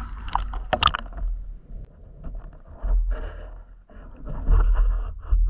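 Water sloshing and gurgling around a camera during a spearfishing dive: low rumbling surges come and go about three times, with small clicks and scrapes in between.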